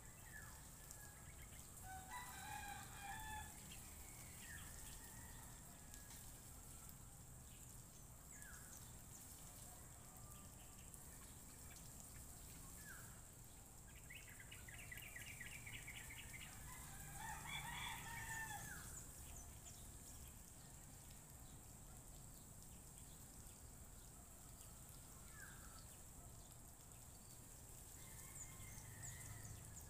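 Faint rooster crowing twice, about two seconds in and again a little past the middle, with scattered short bird chirps and a quick trill in between.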